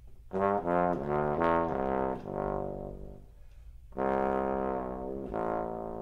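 Instrumental background music: a solo wind instrument plays a slow melody, a run of short notes followed by long held notes, with a brief break just past the middle.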